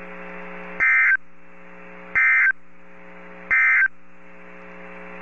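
Three short bursts of SAME digital data tones from a NOAA Weather Radio broadcast, about a second and a third apart: the end-of-message code that closes the tornado warning. A steady electrical hum from the receiver fills the gaps between bursts.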